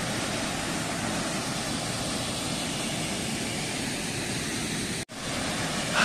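Steady rushing of a small waterfall, the water coming down with some force. There is a momentary dropout about five seconds in.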